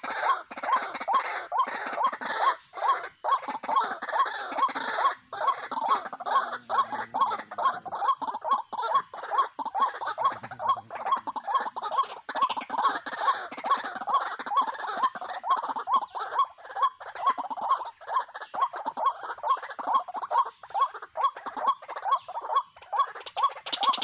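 White-breasted waterhen calls: a short note repeated fast and steadily, about three times a second, without a break.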